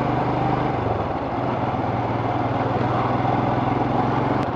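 Royal Enfield Scram 411's single-cylinder engine running steadily at low speed while being ridden, its note shifting slightly about a second in.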